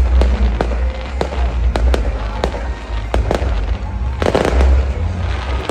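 Fireworks display: a rapid series of sharp bangs over a deep rumble, with a burst of crackling about four seconds in.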